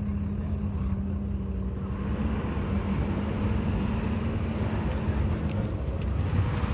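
An engine running steadily, with a low rumble and a constant hum. About two seconds in, a wider rush of noise joins it.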